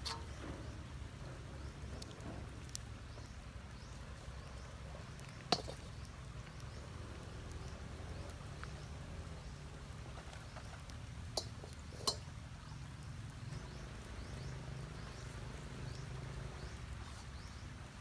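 Shallow stream trickling steadily, with a few short sharp clicks over it: the loudest about five and a half seconds in, and two close together around eleven and twelve seconds.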